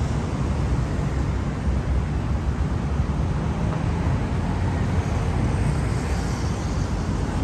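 Steady low rumble of traffic on a busy city street.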